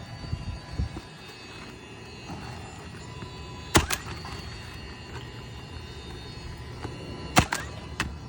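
Two sharp knocks about three and a half seconds apart, with a few lighter knocks near the start: nails being driven to fasten a replacement asphalt shingle.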